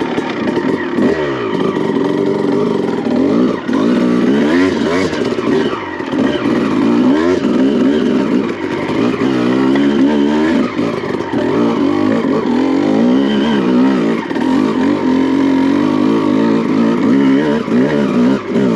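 2001 Honda CR250R's two-stroke single-cylinder engine revving up and down under load on a steep dirt hill climb, the revs rising and falling every second or two as the clutch is slipped.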